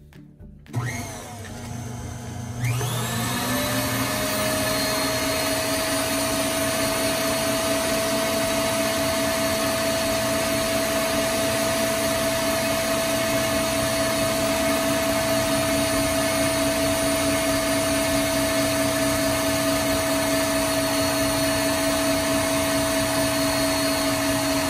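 KitchenAid tilt-head stand mixer switched on about a second in, its motor speeding up over a couple of seconds to full speed, then running steadily with a whine as the wire whisk beats egg whites into meringue in the stainless steel bowl.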